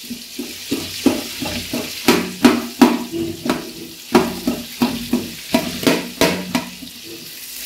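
Sliced shallots, green chillies and whole spices sizzling in hot oil in a large metal pot, stirred with a slotted metal spatula that scrapes and knocks against the pot many times.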